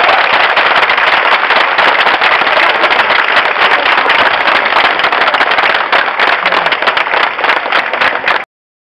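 A crowd applauding: dense, fast clapping that thins a little and cuts off suddenly near the end.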